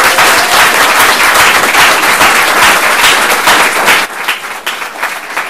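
Audience applauding, loud and dense for about four seconds, then thinning out and quieter.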